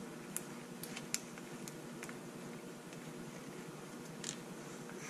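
Faint, scattered small clicks of a screw and hard plastic parts being worked by hand at the wing mount of a Traxxas E-Revo RC truck while a screw is taken out, over a steady low hum.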